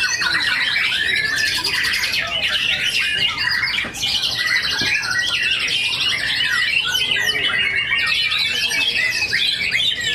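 White-rumped shamas singing all at once, a dense, unbroken tangle of fast whistled notes, trills and harsh buzzy rattles.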